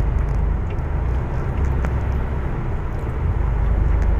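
Steady low rumble of a truck's engine and tyres at motorway speed, heard from inside the cab.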